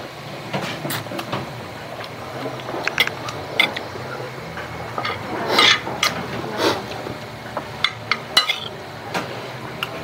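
Metal spoon and fork clinking and scraping against a plate while eating rice, in irregular light taps.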